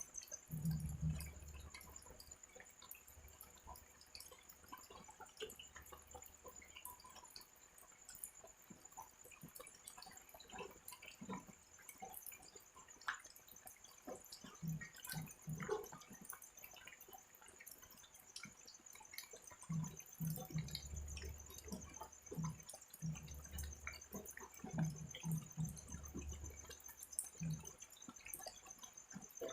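Light drizzle: scattered raindrops dripping, under a cricket's steady high trill. Low pulsing sounds come and go near the start and again in the last third.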